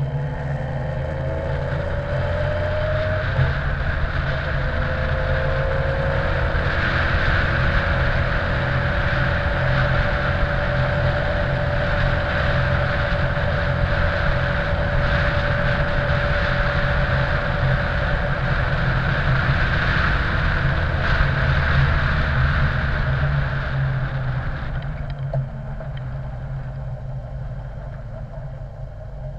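Honda X4's inline-four engine pulling up through the gears, its note rising, then dropping with a gear change about three seconds in and rising again to a steady cruise, under heavy wind rush on the camera. Near the end the engine note and wind rush fall away as the bike slows.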